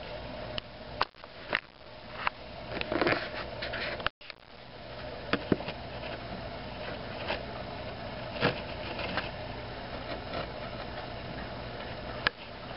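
Steady low hum and hiss with scattered sharp clicks and knocks, and a brief dropout about four seconds in.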